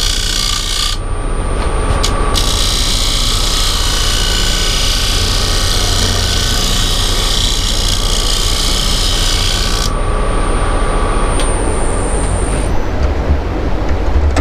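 Woodturning on a running lathe: a steady motor hum with a loud scraping hiss of a tool or abrasive against the spinning wood. The hiss stops about ten seconds in while the lathe keeps running.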